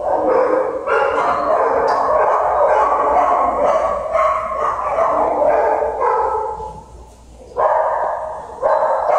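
Dogs in shelter kennel runs barking over one another in a continuous din. It dips briefly about seven seconds in and then picks up again.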